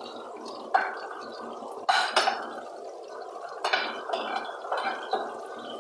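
Kitchen work: a steady rushing noise with sharp clatters of kitchenware about a second in, at two seconds, and again near four and five seconds.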